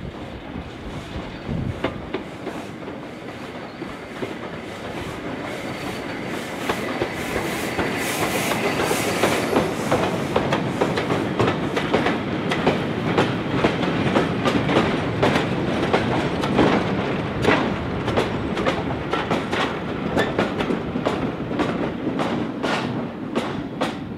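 Steam locomotive hauling a goods train, approaching and growing louder, then passing close by. A long run of wagon wheels clatters over the rail joints in a quick, even rhythm.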